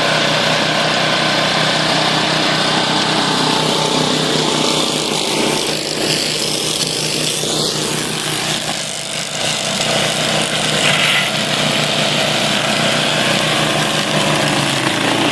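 Engine of an OREC HRC 802 tracked flail mower running steadily, with a brief dip in level a little before the middle.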